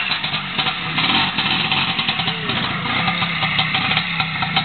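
Vintage trials motorcycle engine running at low revs, pulling the bike slowly over rocks, with a few sharp clicks and knocks in the second half.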